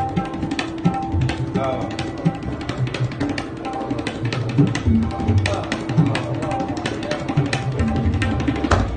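Tabla played solo by hand: rapid strokes on the small treble drum (dayan), which rings at a steady tuned pitch, mixed with deep, booming strokes on the bass drum (bayan).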